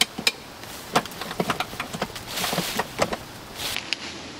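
A rooftop tent's cover and fittings being handled on a telescoping aluminium ladder: a series of sharp clicks and knocks, with bursts of rustling about two and a half seconds in and again near the end.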